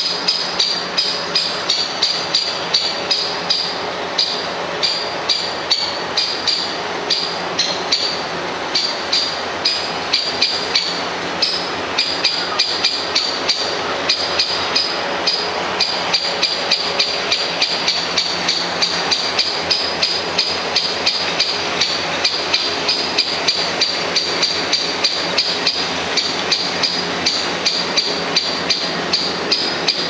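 Great spotted woodpecker alarm call: a sharp, high 'kik' repeated several times a second, on and on without a break, the warning given at the nest when a predator is close.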